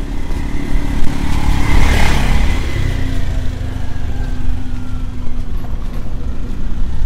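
A motor vehicle passes close by. Its engine noise swells to a peak about two seconds in and then fades, over a steady low rumble.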